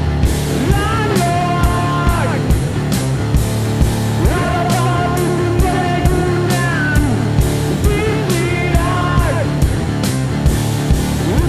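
Live rock duo of electric guitar and drum kit playing at a steady, driving beat, with a voice singing phrases over the loud guitar.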